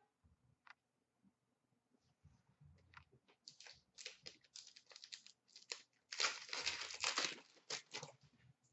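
Foil wrapper of an Upper Deck SP Authentic hockey card pack being torn open, a string of sharp crinkles and crackles that start about three seconds in and are densest and loudest around six to seven seconds in.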